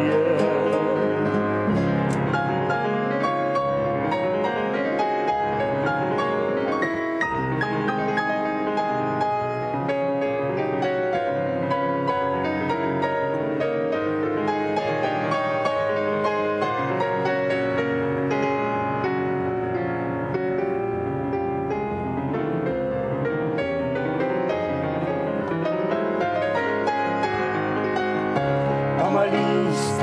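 Instrumental passage on a digital piano, with an acoustic guitar accompanying. A sung note dies away in the first second, and a voice comes back in near the end.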